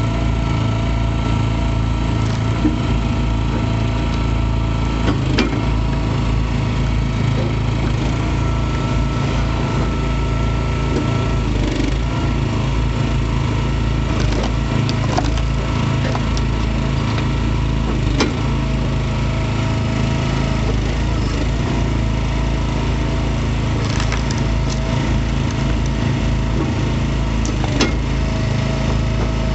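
Easton Made 916 log splitter with its small gas engine running steadily, while wood rounds crack and split on the wedge every few seconds.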